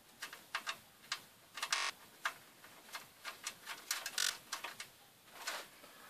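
Irregular small metallic clicks and ticks of a motherboard standoff being handled and screwed in by hand into a steel PC case's motherboard tray, with a brief rattle about two seconds in.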